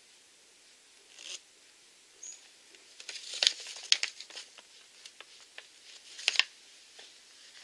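Small plastic toy packaging and a paper checklist being handled: scattered crinkling and light clicks, starting about a second in and busiest through the middle.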